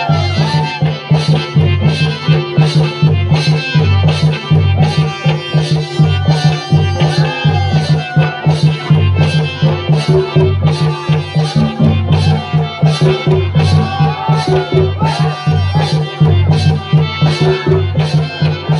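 Santali Sohrai folk song: a steady, evenly repeating drum beat with a wavering melody line over it.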